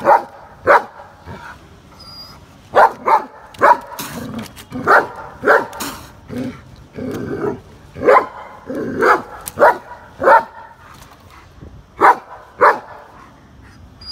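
German shepherd barking at a cat: about a dozen short, sharp barks, singly and in quick pairs with irregular pauses between them.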